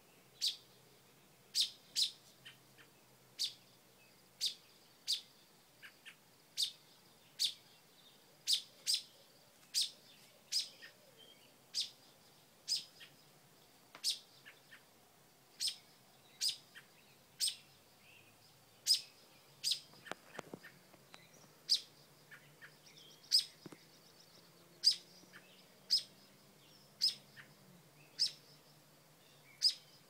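American robin giving short, sharp alarm calls, about one a second, scolding a dog near its nest.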